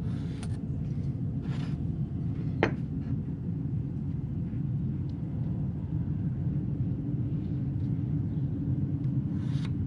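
A pencil scratching a few short lines across a wood block along a speed square, over a steady low rumble; one sharp tick about two and a half seconds in.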